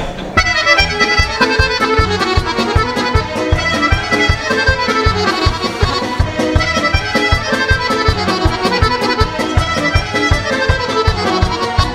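Accordion-led Serbian folk band playing a lively instrumental intro over a fast, steady drum beat. It starts about half a second in and breaks off just before the end, ahead of the singer's entry.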